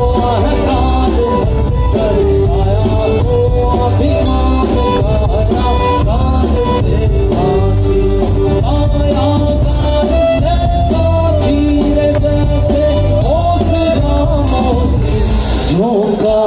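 Live band playing a Kabir folk song: acoustic guitar, electric bass and drum kit, with a singer's voice over them.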